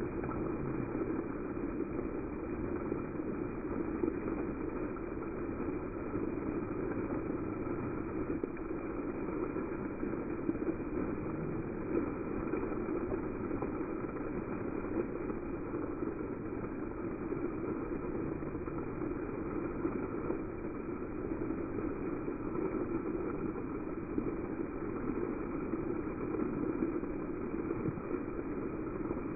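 Water jets of a dancing fountain shooting up and splashing back onto wet paving: a steady rush of falling water.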